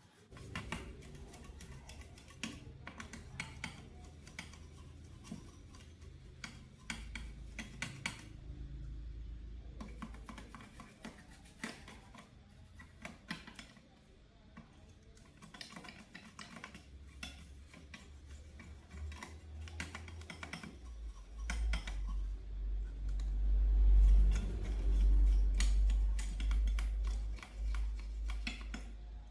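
Irregular small clicks and taps, like hard parts being handled, over a low rumble that grows loudest for several seconds near the end.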